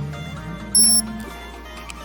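Background music with steady held notes, and a short loud high-pitched tone about three-quarters of a second in.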